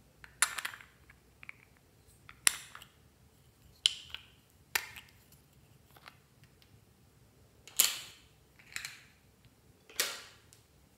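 Small plastic seashell-shaped cases clicking and snapping as they are handled and opened, about seven sharp clicks spread a second or two apart.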